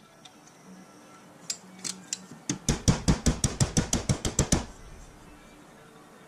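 Metal parts clinking: a few light clicks, then a quick, even run of sharp metallic knocks, about six a second for two seconds, as the cast-aluminium headlight shell and its aluminium mounting piece are handled.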